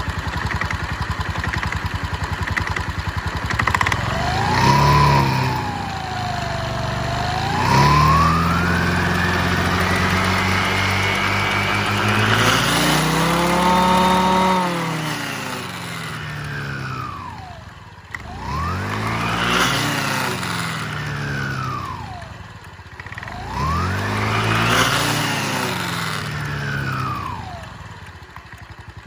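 Scooter engine revved several times with the CVT drive running: a short blip, then a long rev held for several seconds, then two more rev-ups that fall back to idle. A higher whine rises and falls with the revs as the weight rollers push the variator pulley face in and out.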